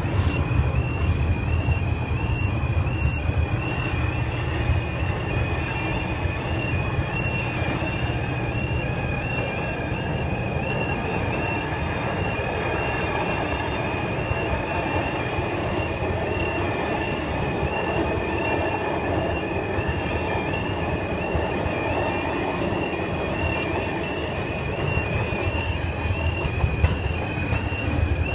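Level crossing warning alarm sounding continuously, a high two-tone note switching back and forth evenly, over the steady rumble of a train passing over the crossing.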